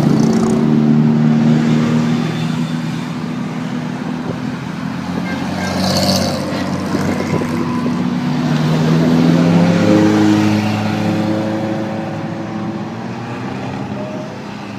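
Engines of vintage cars running and passing by one after another, their notes rising and falling, loudest near the start and again about two-thirds of the way through.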